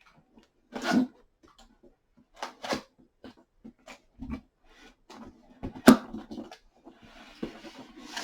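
A cardboard product box being handled: scattered knocks and rustles, one sharp click about six seconds in, and a scraping rustle near the end.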